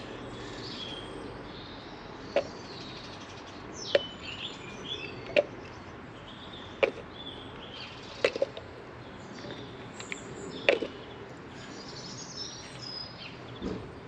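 Sharp, short clicks and knocks of plastic waste-pipe fittings being handled during solvent-weld gluing, about one every second and a half, over birds chirping.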